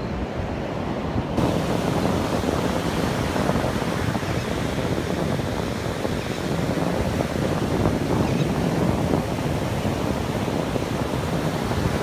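Ocean surf breaking and washing up a sandy beach, a steady rushing roar that gets louder and hissier about a second in.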